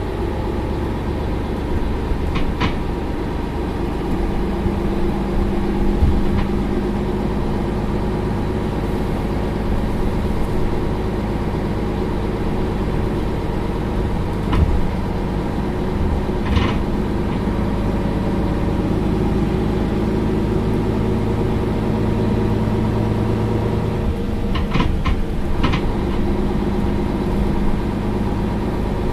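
Mercedes-Benz Citaro Facelift LE city bus engine idling steadily, with a few short clicks over it.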